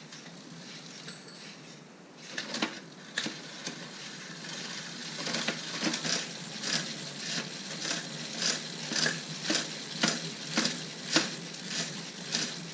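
Bicycle chain and gears being turned over by hand after greasing, the chain running over the sprockets with a few scattered clicks and then a regular click about twice a second.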